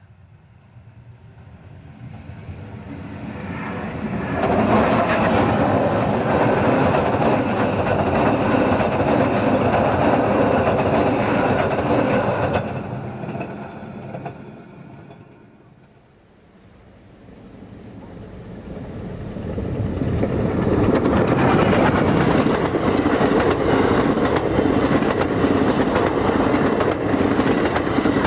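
Heritage railway passenger trains passing the lineside: the first builds up over a few seconds, holds loud and fades away, then a second rake of coaches approaches and runs past loudly, its wheels clicking over the rail joints.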